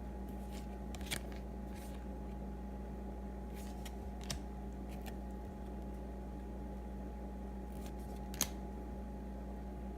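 Trading cards being handled and flipped through, giving a few faint clicks and rustles, the sharpest about eight seconds in. A steady electrical hum runs underneath.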